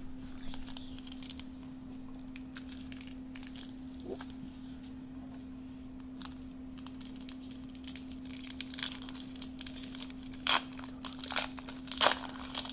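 Foil wrapper of a Bowman Platinum baseball-card pack being torn open and crinkled by hand, with the loudest crackling tears in the last few seconds. A steady low hum runs underneath.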